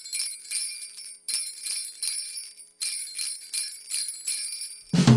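Jingle bells shaken in a steady rhythm, about three shakes a second, in three short runs with brief gaps between them. Right at the end a Christmas pop song with drums and bass comes in loudly.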